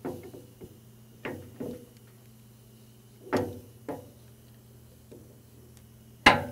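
Metal clinks and knocks as the steel stuffing box of a StripeHog ultra-high-pressure water-blasting pump is slid back into its chamber in the pump head and seated. There are about six sharp knocks, the loudest near the end, over a steady faint hum.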